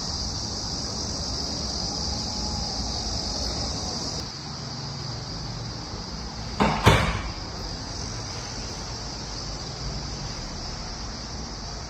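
Steady room tone with a constant hiss, dropping a little about four seconds in, and a single short knock about seven seconds in.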